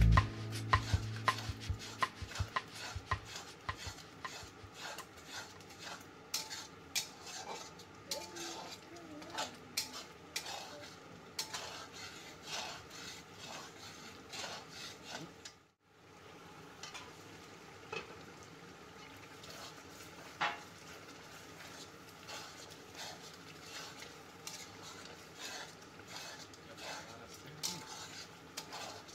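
Metal spatula stirring thick chicken curry in an aluminium kadai: irregular scraping and clinking of metal on the pan, with a brief dropout about halfway through.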